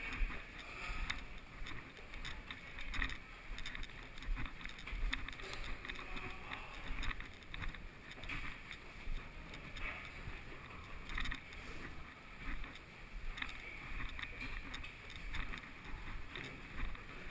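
Footsteps climbing stairwell stairs, about one step a second, with rustling and handling noise from the moving camera.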